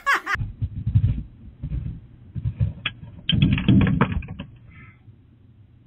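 A fluctuating low rumble with scattered knocks, then a quick run of sharp clicks and cracks about three and a half seconds in, dying away after.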